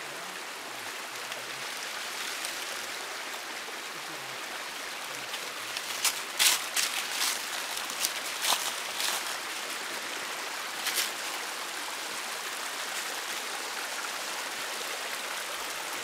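Steady rush of water from a waterfall and its stream. About six seconds in comes a quick run of sharp knocks lasting a few seconds, with one more near eleven seconds.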